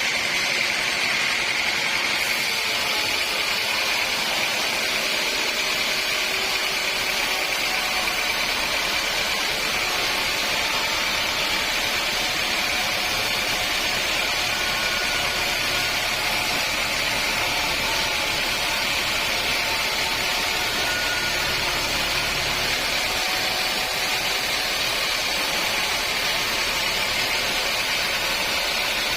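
Sawmill saw and machinery running steadily: an unbroken mechanical noise with a constant high whine.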